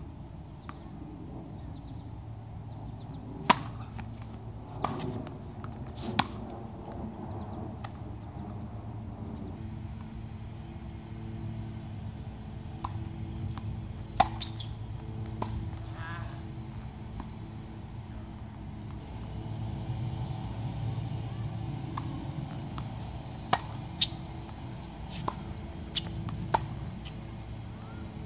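Tennis rally on a hard court: sharp pops of racket strikes and ball bounces, spaced a second or more apart, the loudest about 3.5 s and 14 s in. Underneath is a steady, high-pitched chorus of insects.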